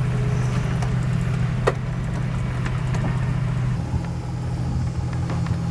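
A boat's engine running with a steady low drone, heard from the wheelhouse, with one short sharp chirp about a second and a half in.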